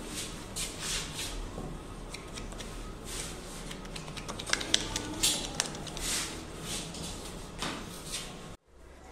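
Short, irregular scraping strokes of a hand blade scraping old cloth remnants and glue off the wooden cushion rail of a snooker table.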